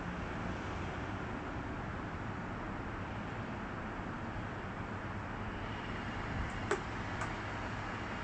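Steady distant city and traffic rumble with a faint low hum. Two short clicks half a second apart come about two-thirds of the way through.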